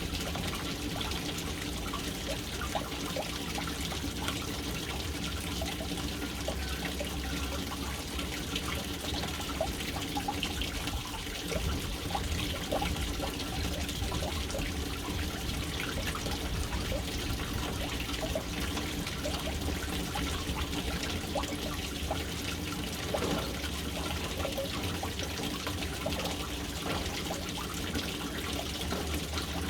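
Water falling into a household water storage tank, a steady, unbroken splashing trickle.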